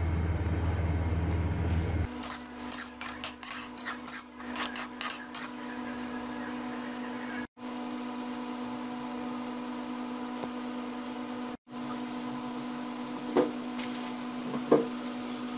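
Taro root slices frying in hot oil in a pot. A low hum cuts off suddenly about two seconds in; then the slices crackle and pop for a few seconds and settle into a steady sizzle over a hum, with two light knocks near the end.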